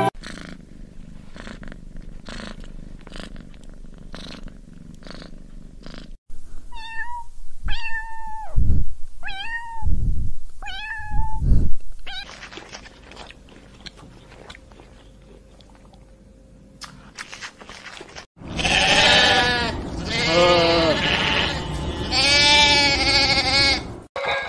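Soft regular pulses, then a cat meowing four times, short calls about a second apart. After a quiet stretch, sheep bleat, with overlapping wavering calls near the end.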